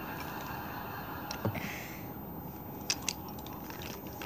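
Wooden toy train cars rolling along wooden track, with a few light clicks, some in close pairs, as the wheels pass over the track joints, over a steady background hiss.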